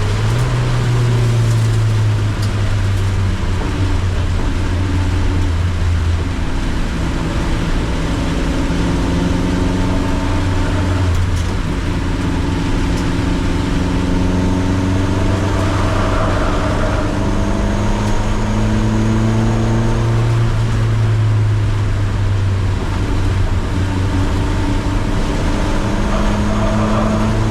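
Car engine driven hard on a circuit, its pitch climbing and dropping again and again as it accelerates, shifts and slows.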